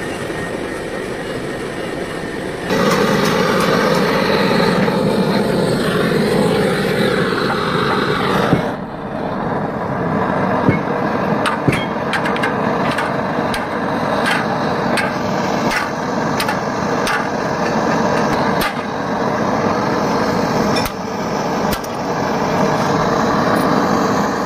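Irregular sharp taps of metal on the sheet-metal tank of a truck radiator, starting about nine seconds in. Under them runs a steady roaring noise that gets louder about three seconds in.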